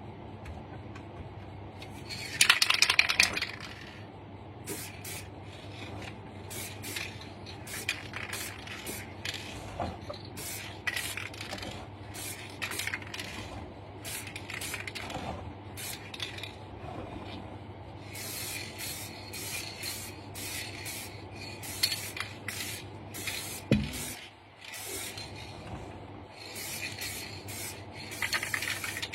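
Aerosol can of chrome silver spray paint hissing in many short bursts, with a louder burst about three seconds in and longer sprays in the second half. There is a single knock a few seconds before the end, and a steady low hum underneath.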